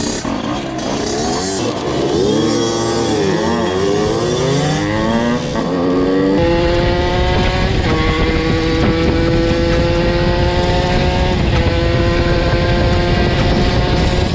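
Several 50cc two-stroke supermotard engines revving at different pitches as the bikes pull away together. About six seconds in, the sound changes abruptly to a single engine held at steady high revs while riding, its pitch stepping down slightly twice.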